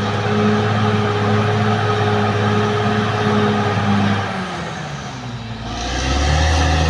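Caterpillar D6R XL bulldozer's diesel engine running steadily. About four seconds in it dips in loudness, and from about six seconds in it runs on at a lower pitch.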